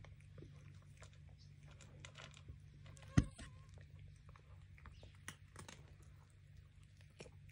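A cat crunching dry kibble in small crackling bites, with one sharp knock that rings briefly about three seconds in, over a low steady hum.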